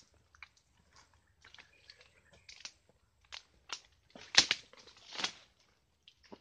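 Irregular crunching and crackling of twigs and leaves as someone pushes through dense mangrove brush, a scatter of small snaps with the loudest crack a little past four seconds in.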